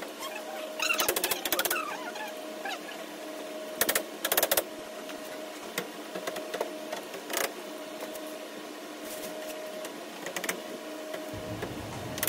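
Plastic panels and doors of a modular plastic wardrobe cabinet clicking and clacking as they are handled, in short clusters of sharp knocks, over a faint steady hum. Near the end a low rumble of the camera being handled comes in.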